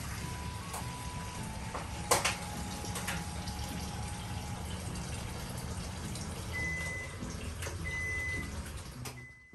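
Vigorous kitchen cooking noise: a steady rushing with a sharp clank about two seconds in and a lighter one a second later. Short high beeps sound a few times near the end.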